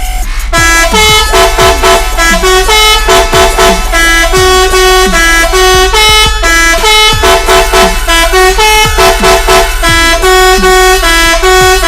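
A three-trumpet musical 'telolet' horn playing a tune in short, loud, clear notes. A low electronic drum beat runs underneath.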